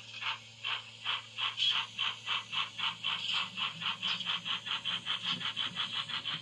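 Dapol OO gauge Terrier model locomotive's DCC sound decoder playing steam-exhaust chuffs through its onboard speaker. The beats quicken from about three to about six a second as the engine picks up speed.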